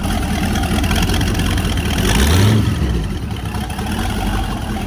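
Turbocharged Toyota Corolla engine running with turbo whistles in its exhaust, revved once about two seconds in, its pitch rising and falling back. The whistles add no clear whistle; the exhaust just sounds straight-piped.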